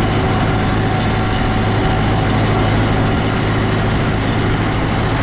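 Heavy tractor engine running steadily with a constant low hum.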